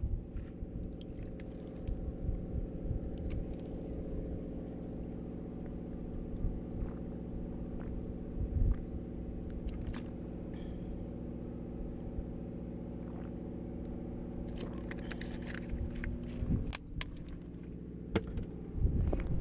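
A car engine idling steadily, with scattered light clicks and rustles of a plastic water bottle and gear being handled.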